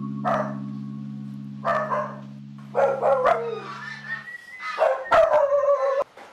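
A dog barking in a series of short barks, loudest near the end, over a held low music chord that stops about four seconds in.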